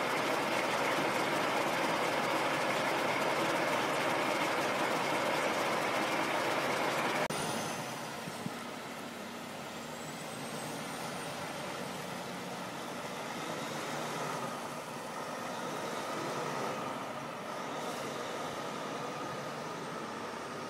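Semi-truck's diesel engine running as the truck drives away, louder for the first seven seconds, then dropping suddenly to a quieter, steady run.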